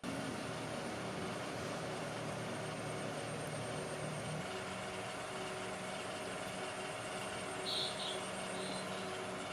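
An electric power tool's motor running steadily at a constant pitch, with a brief higher-pitched sound about eight seconds in.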